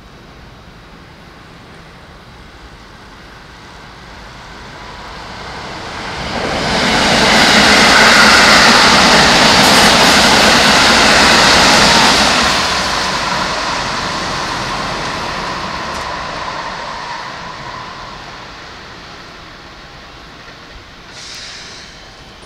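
Keikyu electric train passing close by: it builds up over a few seconds, is loudest for about five seconds as the cars go past, then fades away slowly with a faint steady whine. A short high hiss near the end.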